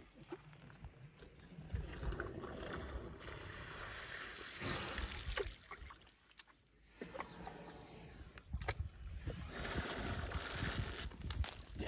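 Water splashing and sloshing at the edge of a dam as an African elephant drinks through its trunk, with scattered short knocks and a dip to quiet partway through.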